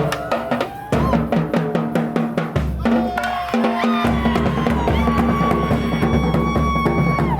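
Street band playing: drums, with bass drum and snare, beat under horns playing held notes. In the second half a long sustained chord rings over the drumming and then cuts off sharply near the end.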